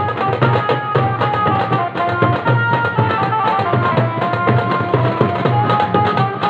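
Loud music: drums beating a dense, fast rhythm under a melody of held notes that step up and down.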